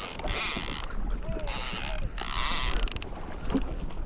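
Fishing reel running in three short bursts of whirring, ratcheting hiss, each about half a second long.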